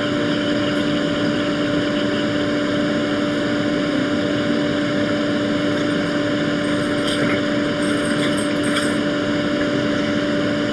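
Fume extractor fan running steadily: an even whir with a constant hum tone.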